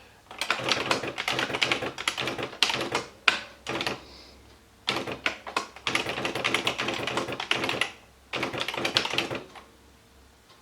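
Esselte 80 electric typewriter typing in rapid runs of clattering keystrikes, four bursts: two of about three seconds, a short one, and a last one of about a second, then it stops.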